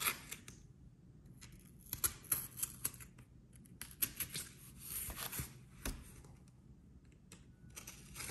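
An X-Acto knife cutting and scraping at tape on cardboard packaging: scattered sharp clicks and short scratchy rasps, bunched into two spells of cutting.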